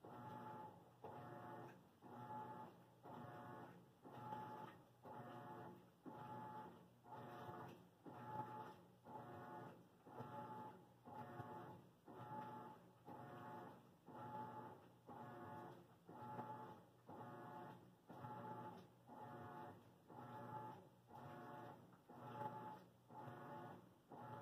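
A laundry machine running faintly, with an even rhythmic pulse of about four strokes every three seconds.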